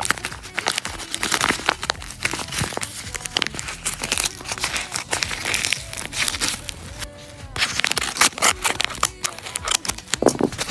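Packaging crinkling and rustling in the hands as a blind bag is opened, in quick irregular crackles with occasional tearing sounds.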